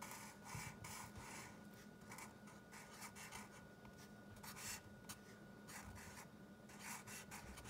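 Faint, irregular strokes of a Sharpie marker writing on a kraft-paper sketchbook cover.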